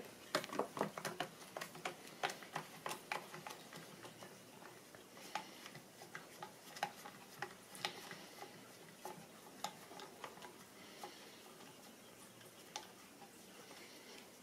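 Allen key unscrewing the pistol-grip screw of an AK-pattern rifle: faint, irregular small metal clicks and ticks, closely spaced over the first few seconds, then more scattered.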